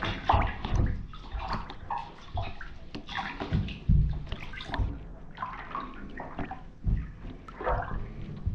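Feet treading in shallow water in a bathtub, sloshing and splashing irregularly with dull thuds, as black UGG sheepskin boots are trodden underwater to soak them.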